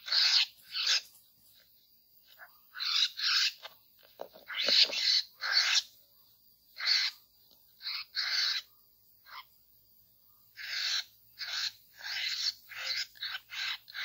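Laughingthrushes (poksay) giving harsh, rasping calls, one after another in bursts of about half a second, some in quick runs near the end, over a faint steady high whine.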